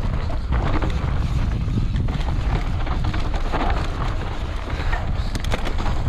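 Wind buffeting an action-camera microphone while a mountain bike descends a dry dirt trail at speed: a steady low rumble from the tyres on the dirt. Scattered clicks and rattles from the bike and loose stones run through it, with a quick flurry of them about five seconds in.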